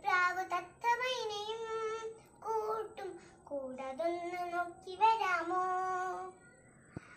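A young girl singing a Malayalam children's song unaccompanied, in several drawn-out phrases with short breaks between them and a pause near the end.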